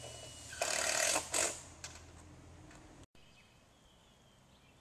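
Work on corrugated metal roof panels: a harsh noisy burst starting about half a second in and lasting about half a second, then a shorter one, over a low steady hum. After a sudden cut near the middle, only faint bird chirps.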